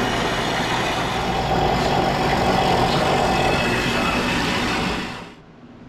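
Horizontal metal-cutting band saw running with coolant, its blade sawing through rectangular steel tubing with a steady grinding noise. The sound dies away about five seconds in.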